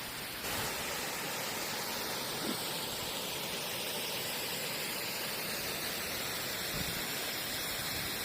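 Small waterfall, East Gill Force, with a steady rush of falling water.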